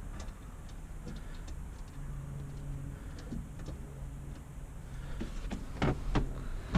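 Scattered light clicks and taps of hand work with small parts and tools at a car's dash, over a low steady hum, with a few sharper knocks near the end.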